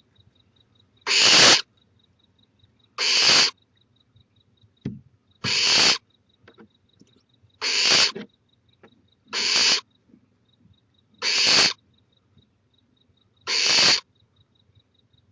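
Barn owl nestling snoring, the hissing food-begging call of owlets: seven breathy hisses, each about half a second long, repeated roughly every two seconds.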